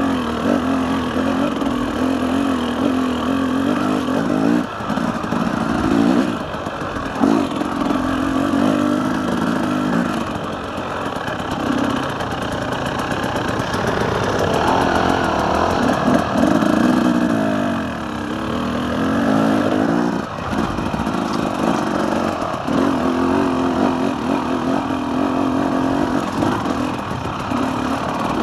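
KTM 300 EXC two-stroke enduro motorcycle engine being ridden, its pitch rising and falling as the throttle is worked, with a few sudden brief throttle cuts.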